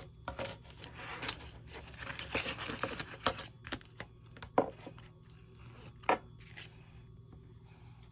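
Paper bills and cash envelopes being handled: rustling, rubbing and crinkling, busiest in the first half, with a few sharp clicks further on, the loudest about six seconds in.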